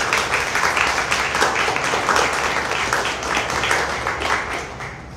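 A small audience applauding: dense, rapid hand clapping that thins out and fades near the end.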